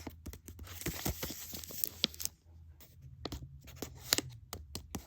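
Blind-bag packet being handled and torn open, crinkling and crackling in many small sharp snaps, with a short lull about two and a half seconds in.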